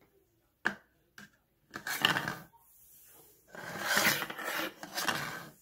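A dried pig ear being scraped and slid across a hardwood floor by hand. There is a sharp knock under a second in, a short scrape about two seconds in, and a longer scraping stretch in the second half.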